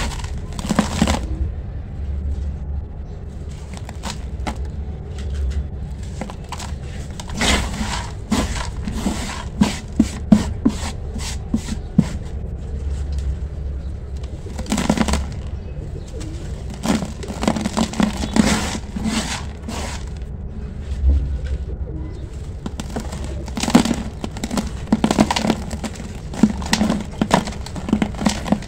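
Dry, crumbly sand-cement chunks and grit being crushed and rubbed between bare hands, heard as irregular clusters of short, crisp crunches and crackles over a steady low rumble.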